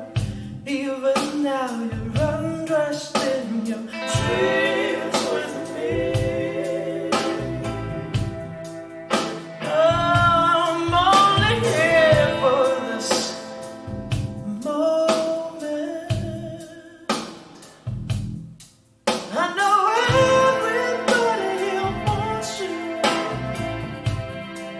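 A rock/folk song with singing over guitar-led backing and a regular beat, played back through hi-fi bookshelf speakers. About 19 seconds in it fades almost to silence, then starts up again.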